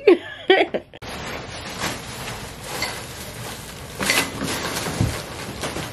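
Plastic shopping bags rustling and crinkling as they are carried and handled, with a dull thump about a second before the end.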